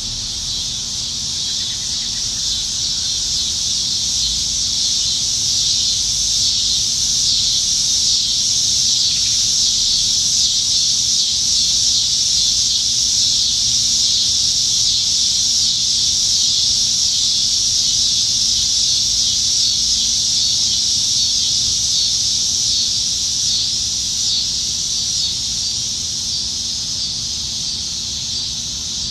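A chorus of cicadas singing in the trees, a dense, high, steady buzz that swells a little in the middle and eases toward the end.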